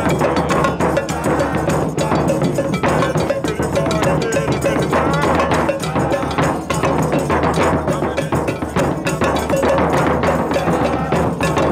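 Loud live street parade music driven by dense percussion: many quick hits with some pitched tones over them.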